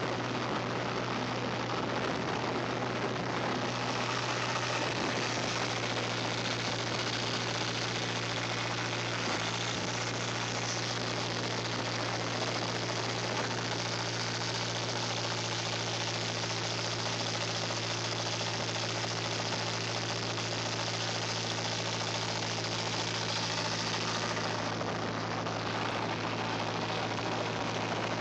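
GAZ-34039 tracked vehicle's turbocharged D-245.12S diesel engine running steadily, a constant low drone with a hiss of noise over it.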